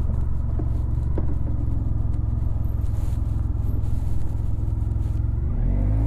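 Honda VFR1200X Crosstourer's V4 engine running through an Akrapovic titanium exhaust while riding, a steady low exhaust note. Near the end the note changes and starts to rise.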